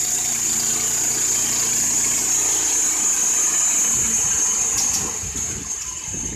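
Wood-Mizer LT15 band sawmill running on its 15 hp Kohler Pro-15 petrol engine, a steady engine note with a high whine over it. About four seconds in, the steady running gives way to an irregular rattle and the sound gets quieter.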